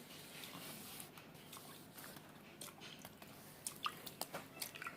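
Faint, soft wet dabbing with a few light clicks of a utensil as the top genoise sponge layer is soaked, the clicks bunching toward the end.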